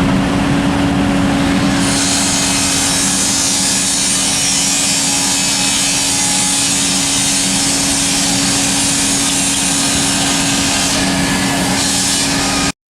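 A steady engine-like hum with an even, loud hiss that comes in about two seconds in; the sound cuts off abruptly near the end.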